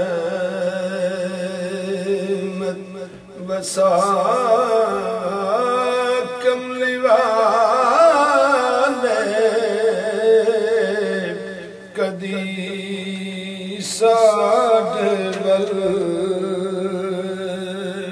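A man singing Sufi poetry in a slow, chant-like style, his voice wavering through ornamented turns over a steady held drone. He pauses briefly for breath at about three seconds and again near twelve seconds.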